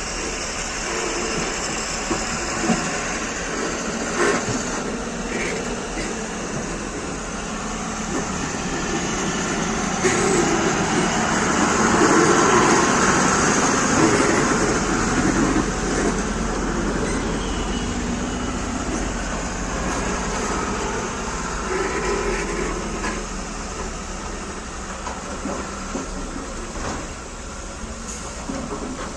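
Heavy vehicle running: a steady noisy drone with a low hum and a few sharp knocks, growing louder for a few seconds about ten seconds in.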